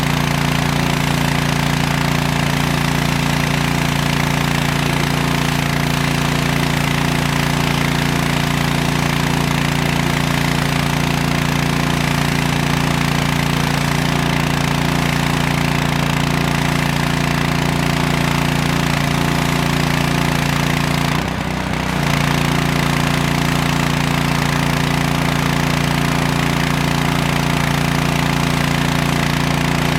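Gas pressure washer's small engine running steadily at full throttle, the freshly rebuilt engine holding an even note, with a brief dip in level about two-thirds of the way through.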